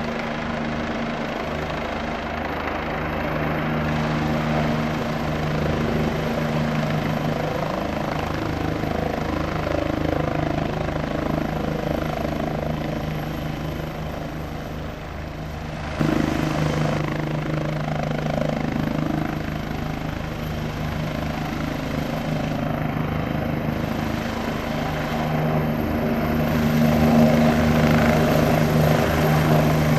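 Bell 429 helicopter in flight, its four-blade main rotor beating rapidly over the steady drone of its twin turboshaft engines. The sound steps up abruptly in loudness about halfway through and grows louder again near the end.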